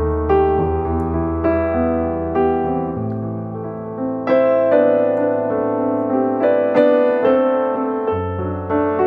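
Background piano music: a melody of held notes, with a new note or chord struck about once a second.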